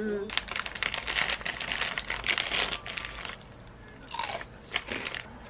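A thin clear plastic snack bag crinkling as it is handled and opened, for about three seconds, followed by a couple of brief quieter crackles.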